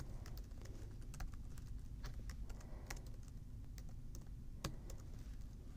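Faint typing on a computer keyboard: irregular keystrokes, several a second.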